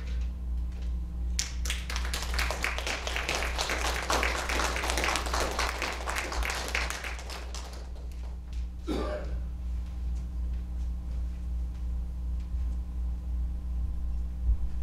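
A small congregation applauding for about six seconds, starting a little over a second in and dying away, over a steady low hum.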